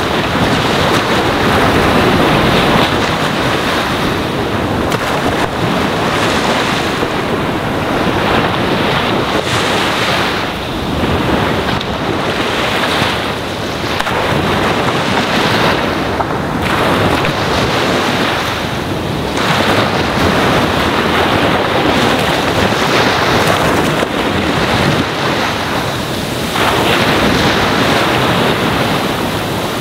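Ocean waves washing onto a sandy shore: a continuous rush of surf, with louder washes every few seconds.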